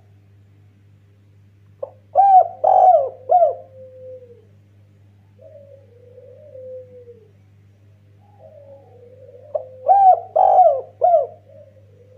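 Spotted dove (derkuku) cooing: two phrases about eight seconds apart, each three quick rising-and-falling coos ending in a lower drawn-out note, with a fainter coo between them. A steady low hum runs underneath.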